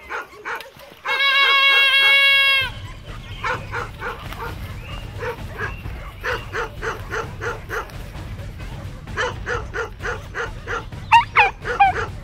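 Hunting dogs on a driven boar hunt barking in rapid succession, about two to three barks a second, with sharper, higher yelps near the end. About a second in, a loud, steady, horn-like pitched tone sounds for under two seconds before the barking starts, over a low rumble.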